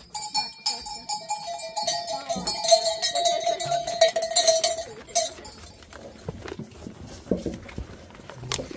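A herd of goats crowding into a pen and jostling at a feed trough, with bells clinking and hooves clattering. A long steady call or cry is held over the first five seconds or so.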